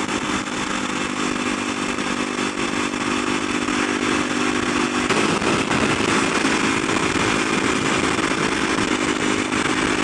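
Kawasaki supermoto's engine running steadily at highway speed, heard from a helmet camera with a broad rush of wind and road noise. The engine note shifts about five seconds in.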